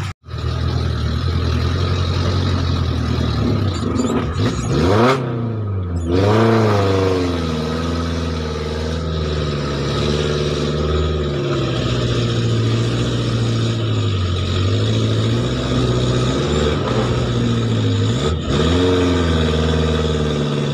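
Off-road 4x4's engine running steadily in low gear. It revs up about five seconds in, again a second or two later, and once more near the end.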